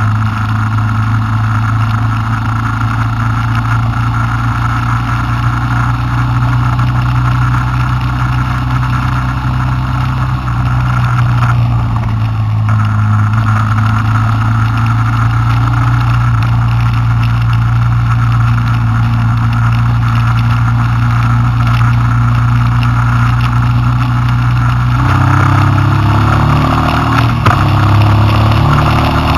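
Honda Transalp's V-twin engine running steadily at road speed. About 25 seconds in the note changes and climbs toward the end.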